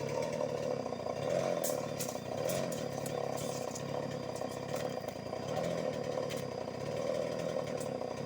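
Stihl 381 two-stroke chainsaw running at low speed, its engine note wavering gently up and down without going to full throttle, with a few light clicks about two to three seconds in.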